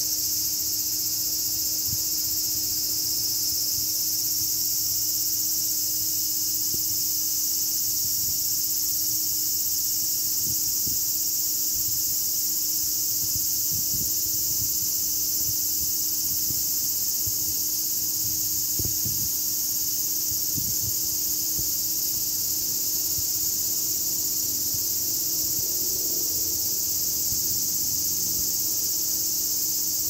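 Cicadas singing in a continuous chorus: an unbroken, high-pitched shrill drone at an even level.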